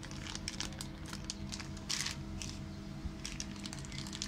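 Zip-lock plastic bag being pressed shut along its zipper and handled: scattered small clicks and brief crinkles of the plastic, over a faint steady hum.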